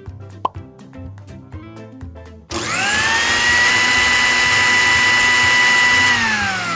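Small portable bottle blender's motor switching on about two and a half seconds in, its whine rising in pitch as it spins up, then running at a steady high whine while blending fruit, and winding down with falling pitch near the end.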